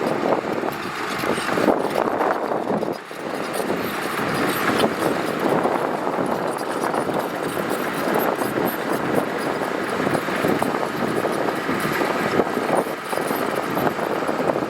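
Heavy earthmoving machinery working gravel, a diesel engine running under a dense, noisy clatter, with a brief dip about three seconds in.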